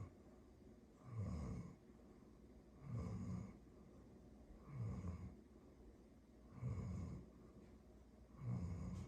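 Chocolate Labrador Retriever snoring: five low snores evenly spaced, one a little under every two seconds, with quiet breathing in between.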